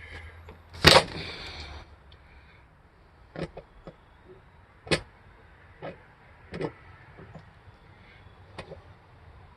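A loud knock about a second in, running into about a second of rattling or scraping. It is followed by several lighter knocks and clicks spaced a second or more apart.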